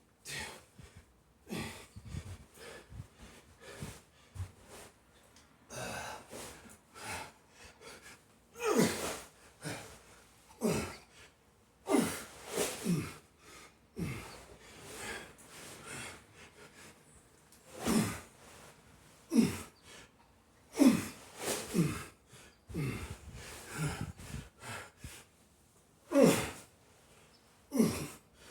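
A man breathing hard and gasping, with forceful exhales and grunts every second or two, some of them falling in pitch: out of breath from heavy sandbag lifting.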